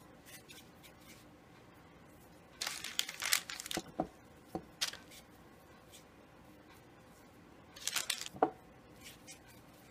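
Parchment paper crinkling in short bursts as soft fondant balls are set down on it, about three seconds in, again briefly around four to five seconds, and once more near eight seconds.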